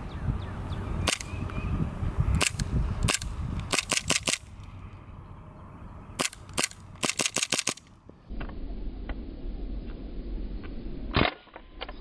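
WE full-metal 1911 gas blowback airsoft pistol firing: sharp single shots, then quick strings of several shots in rapid succession. About eight seconds in the sound drops to a quieter background, with one more sharp shot near the end.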